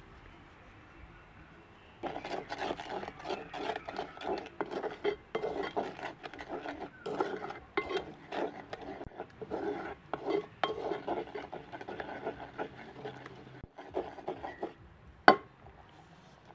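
A utensil stirring and scraping against a pot, heard as a quick, busy run of clinks and scrapes. It starts about two seconds in and stops a few seconds before the end, followed by one sharp knock.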